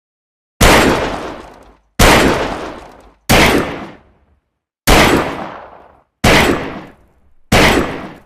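Six revolver gunshots from a cheap Saturday night special, fired one at a time about a second and a half apart, each with a long echoing tail.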